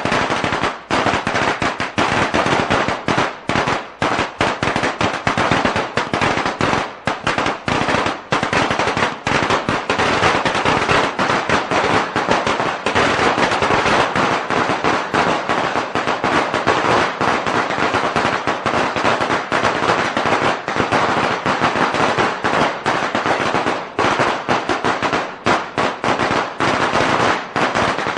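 A long string of firecrackers going off in a continuous rapid crackle of sharp bangs, too fast to count, without a break.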